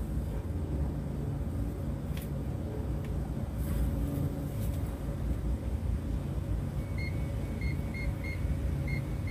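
Motor yacht's inboard engine running at slow harbour speed, a steady low rumble. From about seven seconds in, a run of short, high electronic beeps joins it, a few each second.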